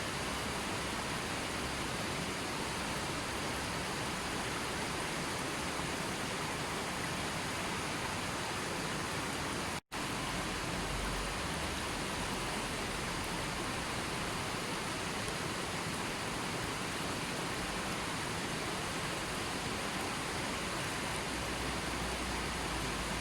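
Steady, even rushing of water, a full hiss with no separate drops, splashes or other events. It drops out to silence for an instant about ten seconds in, then resumes unchanged.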